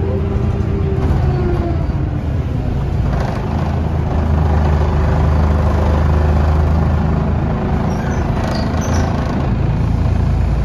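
Scania L94UB bus heard from inside the cabin: a whine from the drivetrain falls in pitch over the first two seconds, over a steady low engine rumble and road noise. The low drone grows heavier about four seconds in, with a brief hiss near the end.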